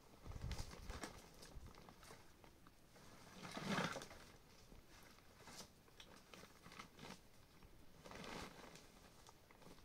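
Faint scuffs and rustles of a person shifting on dry, stony ground and sitting down against a bundle of boards and sacking, with the loudest rustle just under four seconds in.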